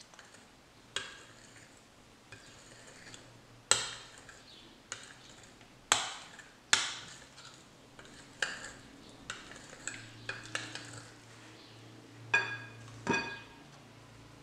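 A metal utensil stirring flour and oats in a glass mixing bowl, with a dozen or so sharp, irregular clinks against the glass, some ringing briefly.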